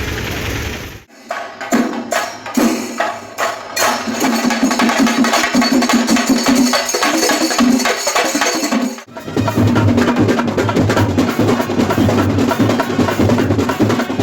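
Fast percussion music: dense, rapid drum strokes with a steady low undertone. It cuts out abruptly about a second in and again near nine seconds, then resumes.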